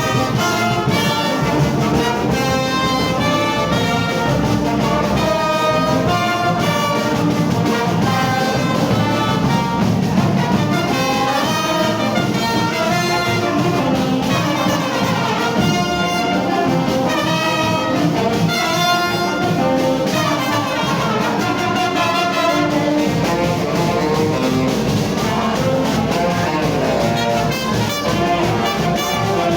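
Brass orchestra playing a lively tune, trumpets and trombones carrying a melody of short, quick notes over a full low accompaniment.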